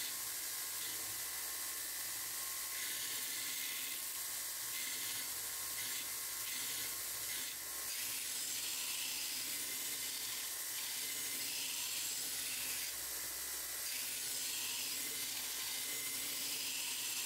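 Belt grinder running with a forged steel blank being surface ground across its contact wheel: a steady hiss of abrasive belt on steel.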